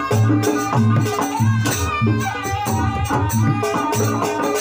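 Traditional jaranan dance music: drums and metallic percussion in a steady beat over a repeating low note about twice a second, with melodic lines above.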